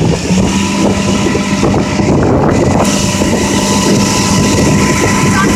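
Motorboat engine running steadily at speed while towing a rider. Its pitch steps up slightly just after the start and then holds, over a rush of wind on the microphone and churning wake water.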